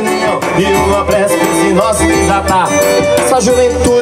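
Live band music with a steady bass line and a sung melody over it.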